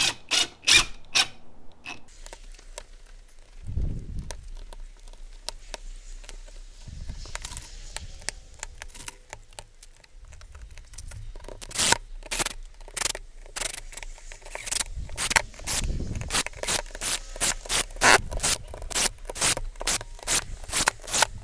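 Screws being set into the metal flange of a roof vent: small metallic clicks and scrapes. It is sparse at first, then turns into a dense run of sharp clicks over roughly the last ten seconds.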